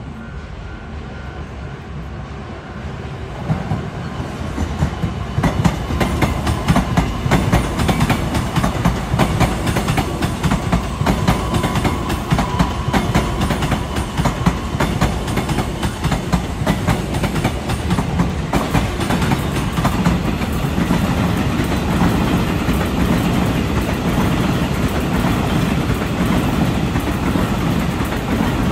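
Two Taiwan Railway trains, one an EMU900 electric multiple unit, passing each other, with wheels clattering rapidly over the rail joints. The noise builds about three seconds in and stays loud.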